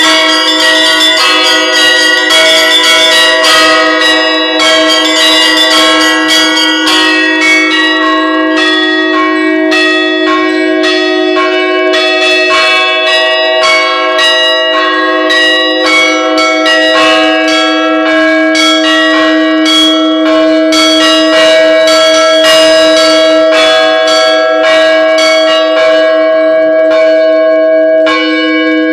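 Bells ringing continuously, struck a few times a second, their tones ringing on and overlapping into a dense, sustained peal.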